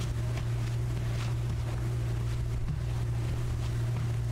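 Steady low hum under a faint hiss, with a few faint clicks.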